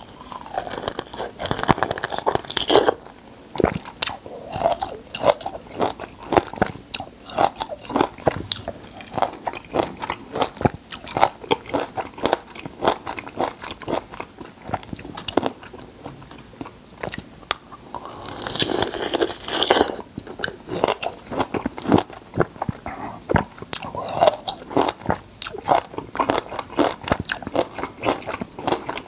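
Close-miked biting and chewing of whole peeled raw lemons and limes, irregular wet crunches and crackles of the pulp and pith. Two louder, denser spells of crunching come near the start and about two-thirds of the way through.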